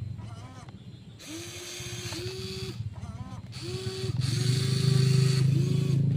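Electric motors of a WLtoys 16800 RC excavator running: short whining bursts that start and stop over a steady low hum, as it works the sand. The sound grows louder about four seconds in.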